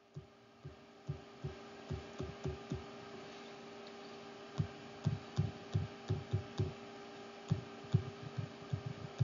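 Stylus writing on a tablet screen: soft, irregular low taps and thuds as strokes are put down, several a second, with a pause of about a second and a half midway, over a low steady hum.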